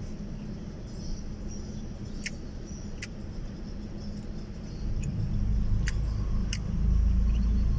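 Low rumble of a motor vehicle, swelling about five seconds in and staying loud, with a few short sharp clicks over it.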